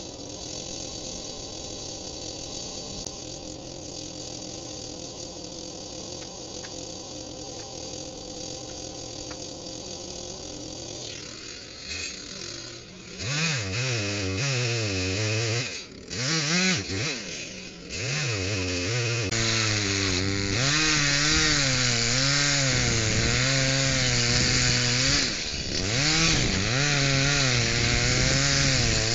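Echo CS-310 two-stroke chainsaw idling steadily for about the first eleven seconds, then revved in several short bursts. It then runs at full throttle, its pitch wavering as the chain cuts into the base of a tree trunk.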